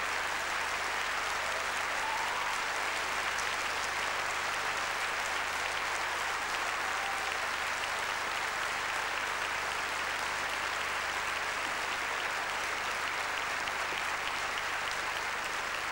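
Large theatre audience applauding, steady clapping that neither builds nor fades.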